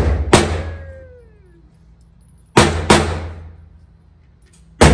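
Gunshots from a 9mm CZ Scorpion EVO 3 S1 carbine echoing in an indoor range: a single shot, a quick pair about two seconds later, and another right at the end, each ringing out for about a second.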